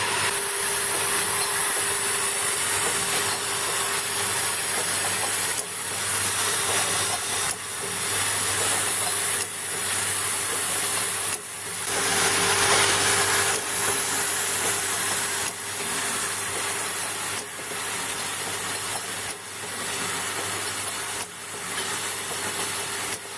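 Liquid filling machine running with a steady hum and hiss, broken by a brief dip about every two seconds as it works through its filling cycles.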